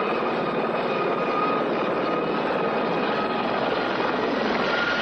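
Helicopter in flight: steady engine and rotor noise with a high whine running through it.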